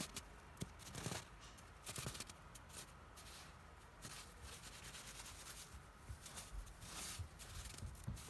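Snow crunching and scraping in irregular bursts, several over a few seconds.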